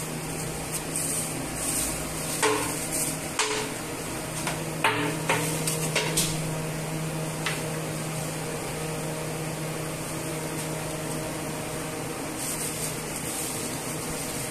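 Several sharp knocks and clacks in the first half, from pots and utensils being handled during bulk cooking, over a steady mechanical hum.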